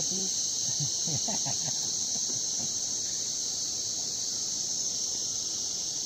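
Steady high-pitched chorus of insects, with faint voices murmuring in the first couple of seconds.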